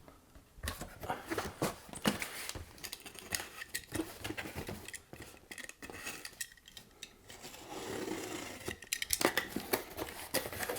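Hands handling packaging and gear: a run of irregular clicks, scrapes and rustling that starts about half a second in.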